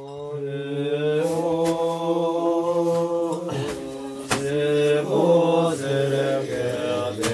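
A group of men chanting together in unison, holding long, drawn-out notes. One long held note breaks off about three and a half seconds in, then a second held phrase with some rises and falls follows. A short sharp click comes just after the break.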